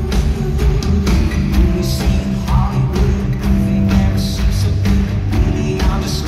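Live pop-rock band playing in a large arena, heard from the audience: a steady drum beat with bass, guitars and keyboard.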